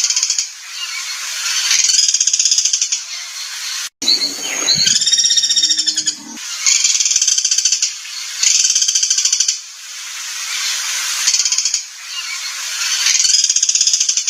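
Songbird 'masteran' recording of harsh, buzzy chattering: rapid rattling trills repeated every couple of seconds. After an abrupt cut about four seconds in comes a brief burst of lower, throatier calls.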